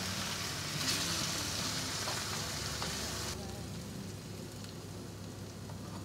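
Diced zucchini sizzling in a frying pan over a gas flame while being stirred with a spatula, with a few short scrapes. The sizzle drops sharply to a much quieter hiss a little past halfway.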